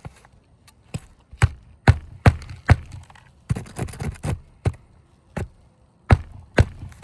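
Hammer blows driving roofing nails into a replacement asphalt shingle: about a dozen sharp, irregular strikes, with a quicker run of lighter taps in the middle.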